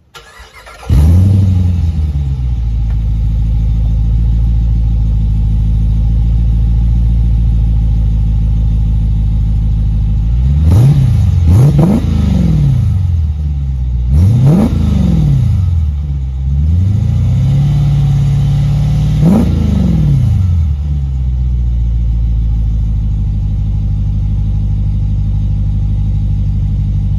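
A 2021 Jeep Grand Cherokee L's 5.7 Hemi V8 through Magnaflow mufflers and an X-pipe, starting about a second in with a loud flare that settles to a steady idle. Between about ten and twenty seconds in it is revved several times in quick blips, each rising and falling, then it idles again.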